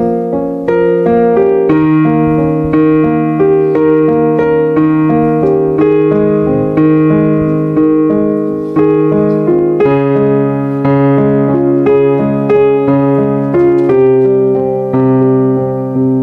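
Solo piano playing a slow hymn introduction: held chords under a simple melody, a new note or chord about every half second to a second, with the bass moving to a lower note twice.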